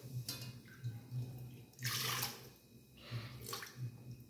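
Water poured cup by cup into the empty metal inner pot of an electric rice cooker, splashing in three short pours.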